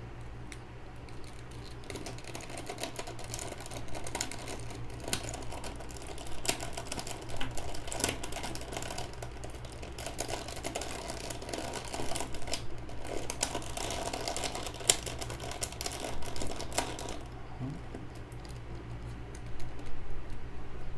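Valk 3 speedcube's plastic pieces clicking and clacking in quick irregular runs as the cube is handled and turned while its edges are lubricated with Cubicle Silk. A low steady hum runs underneath.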